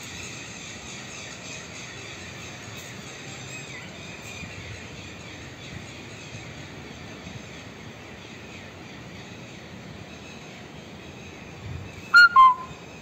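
Steady outdoor background noise, then near the end a loud two-note bird call that steps down in pitch.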